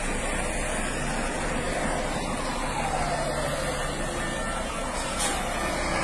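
Iveco Magirus fire engines driving past, a steady mix of heavy engine and road noise. A faint falling tone sounds twice, about two and a half and four and a half seconds in.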